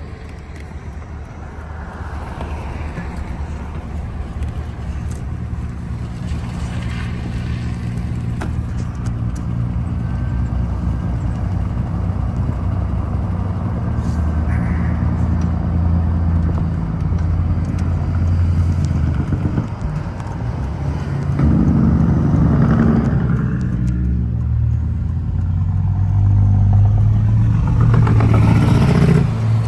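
Engine and road noise of a moving car heard from inside its cabin, growing louder as the car gathers speed, dipping briefly about two-thirds of the way through and then rising again.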